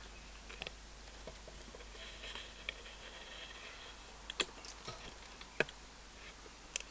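Magnetic Z-cube 3x3 speedcube being turned during a solve: irregular plastic clicks and clacks as the layers turn and snap into place, the cube still unlubricated and untensioned.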